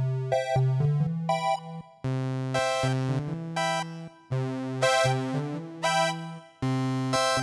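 Casio CTK-800 electronic keyboard playing a synthesized tune with bass notes and chords, in short phrases that stop and start again about every two seconds.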